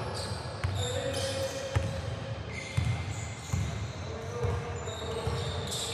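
A basketball bouncing on a hardwood gym floor about once a second during play, with short high squeaks from sneakers on the court.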